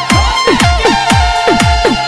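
Instrumental break of a Rajasthani DJ-style rasiya folk song: an electronic beat of quick falling-pitch drum hits, several a second, under a held melody line that bends in pitch. No singing.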